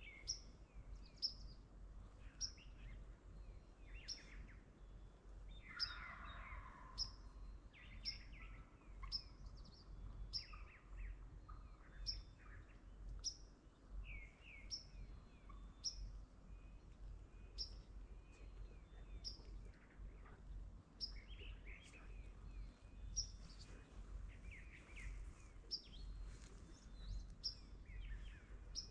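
Quiet woodland birdsong: one bird repeats a short high chip about once or twice a second while other songbirds sing around it, with a louder, lower call about six seconds in.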